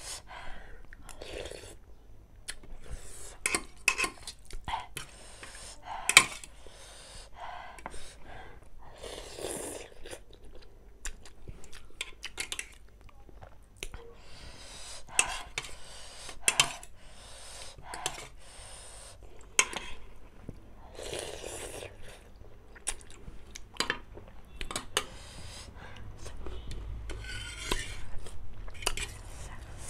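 Close-up eating of instant noodles: chewing, with short bursts of mouth noise, while a fork and spoon clink and scrape on a stainless steel plate in sharp clicks throughout.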